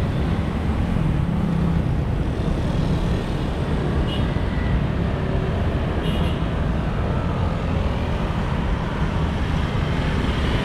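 Steady roadside traffic: motor scooters and cars passing close by on a city street, their engines and tyres making a continuous rumble.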